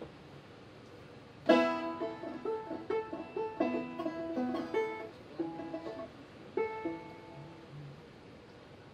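Banjo: a loud strummed chord about a second and a half in, then several seconds of single picked notes that stop near the end, a player checking her tuning before the song.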